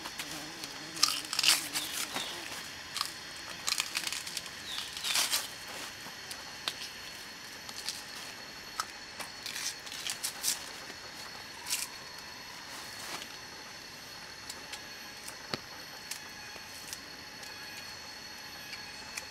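Dry plant material crackling and tearing as it is handled, with sharp snaps that come thick in the first few seconds and then grow sparse.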